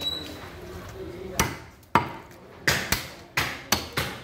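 Large butcher's knife chopping beef on a wooden chopping block: a run of about seven sharp chops starting about a second and a half in, coming quicker toward the end.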